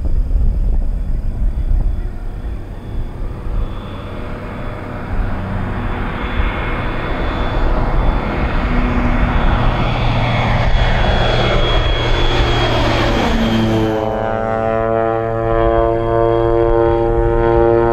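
Air Tractor AT-402 crop duster's turboprop engine and propeller as the plane approaches low and passes, growing louder and falling in pitch as it goes by. About three quarters of the way in, the sound changes abruptly to a steady, even propeller drone.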